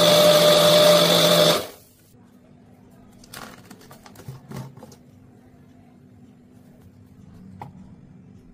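Electric blender motor running at full speed through a milkshake, then switching off abruptly about a second and a half in. Afterwards come a few faint clicks and knocks as the blender jar is handled.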